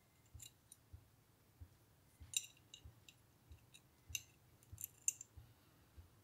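Small metal parts of a Falcon No.220 block plane, its blade and lever cap, clicking and clinking against each other as they are handled and fitted back together. There are about a dozen light, scattered clicks, a few of them sharper and ringing.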